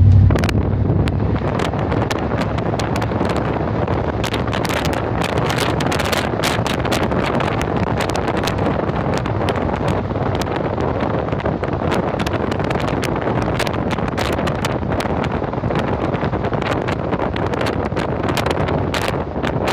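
Steady road and wind noise of a vehicle driving on a wet road in the rain, with many scattered sharp ticks of raindrops striking.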